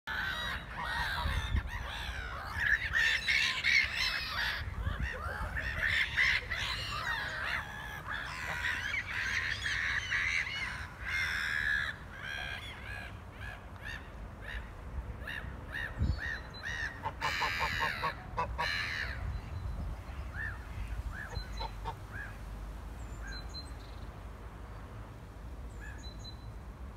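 A flock of black-headed gulls calling, many cries overlapping for the first half, then a louder run of calls a few seconds later and only scattered calls toward the end.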